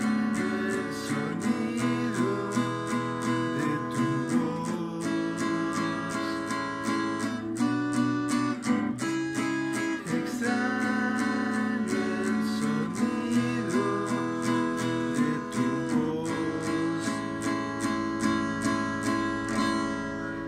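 Music: an acoustic guitar strummed in a steady rhythm under sustained pitched tones, with no words. It begins to fade near the end.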